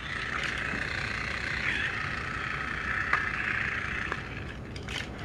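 Small electric motor of a battery-powered Trackmaster toy train whirring steadily, then cutting off about four seconds in, with a few sharp plastic clicks.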